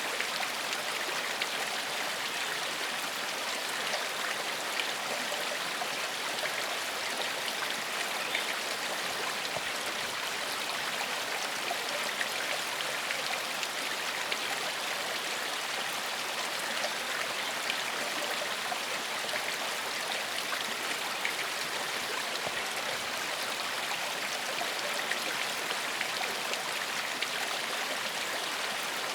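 Shallow forest stream flowing steadily, an even rush of water with fine splashing and trickling over stones.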